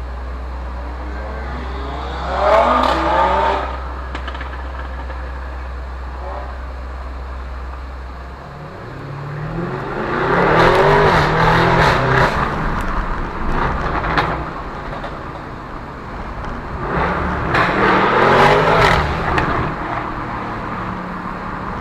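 Cars pulling away one after another, engines revving up with rising pitch and gear changes; three loud passes, the longest in the middle.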